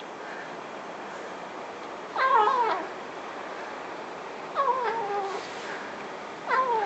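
Kitten meowing three times, each call about half a second long and falling in pitch, over a steady background hiss.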